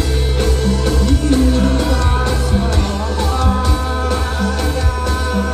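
Live rock band playing a song: electric guitars and drums with a sung vocal line over them.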